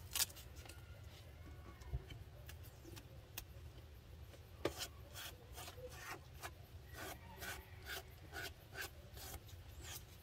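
Hands rubbing and pressing automotive masking tape down onto the joints of a wooden beehive box, sealing it: a run of short scratchy strokes on the wood, with a couple of sharper clicks, getting quicker, about two to three strokes a second, in the last few seconds.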